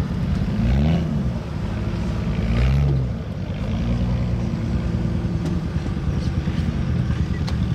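Sherp ATV's diesel engine revving up and back down twice in the first few seconds, then running steadily under load as the vehicle crawls up a trailer loading ramp.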